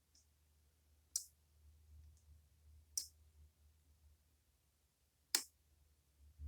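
Three sharp, isolated clicks about two seconds apart from a lock pick working the spooled pins of a Goal Z pin tumbler lock under tension.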